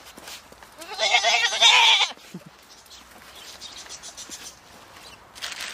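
A domestic goat gives one loud, wavering bleat about a second long, starting about a second in.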